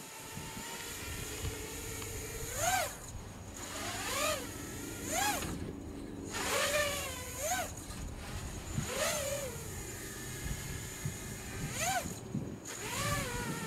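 Furibee X215 Pro racing quadcopter's brushless motors and propellers whining in flight, the pitch jumping up and dropping back about eight times as the throttle is punched for flips and rolls.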